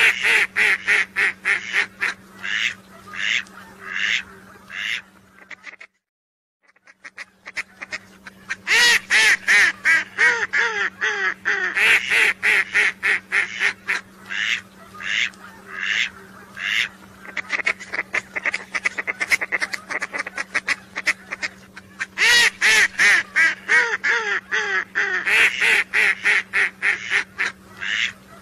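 Ducks calling in rapid runs of repeated pitched notes, several a second, over a steady low hum. The calling breaks off for about a second some six seconds in, then carries on.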